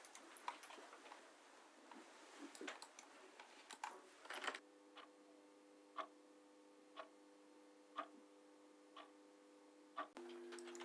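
Faint, irregular computer-keyboard typing clicks, then a quartz wall clock ticking once a second, six ticks, over a faint steady hum.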